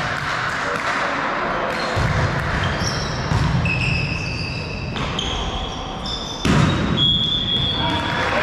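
Volleyball rally in an echoing sports hall: the ball struck several times, the loudest hit about six and a half seconds in, with shoes squeaking in short high chirps on the court floor and players' voices underneath.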